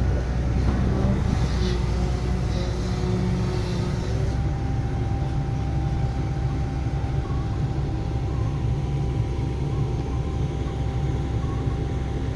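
Diesel engine of heavy earthmoving machinery running steadily, with extra hissing noise between about one and four seconds in.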